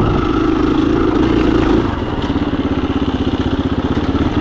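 KTM 350 EXC-F dirt bike's single-cylinder four-stroke engine running steadily, then dropping about two seconds in to a lower, evenly pulsing note as the revs fall off.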